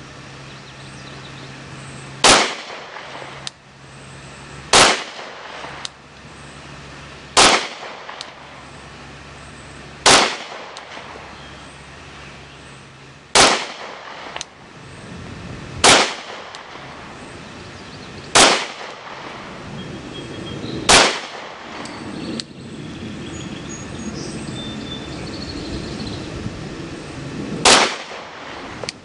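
Glock 23 .40-calibre pistol firing nine single shots, about two and a half seconds apart, with a longer pause before the last one.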